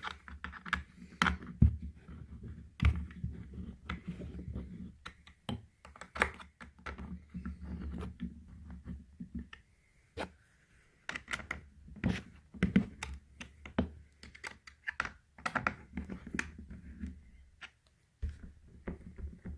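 Allen key turning furniture bolts into a chair frame: a long run of irregular small metal clicks and light scrapes with short pauses between turns. The bolts are being run in only until snug and left loose for final tightening later.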